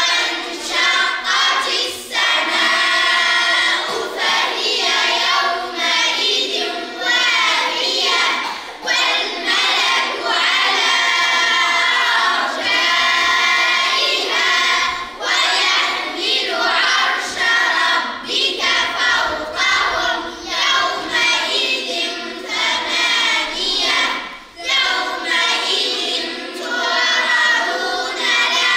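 A group of children reciting the Quran aloud in unison, a chanted recitation with short breaks for breath every few seconds.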